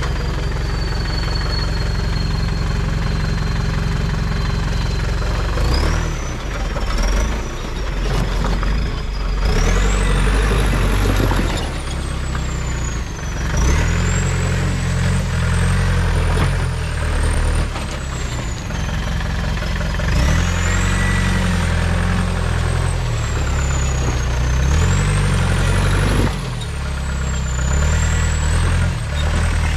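Mahindra Thar's engine running in low gear while crawling over boulders, its revs rising and easing off again and again. A thin high whine rises and falls in pitch along with it.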